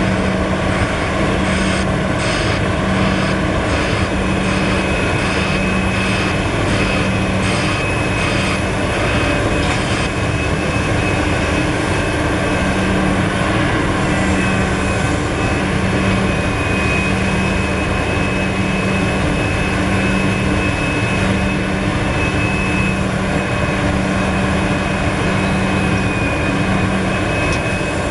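Large Liebherr R974 crawler excavator's diesel engine running steadily under digging and swinging load, with a steady high whine from about four seconds in. A series of short metallic clanks sounds during the first ten seconds.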